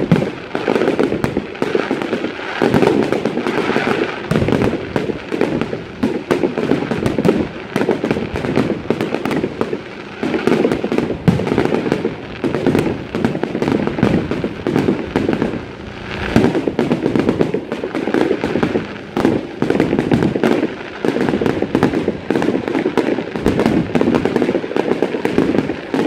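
Fireworks display: a dense barrage of aerial shells bursting and crackling, many bangs a second with hardly a break. There is a short lull about sixteen seconds in.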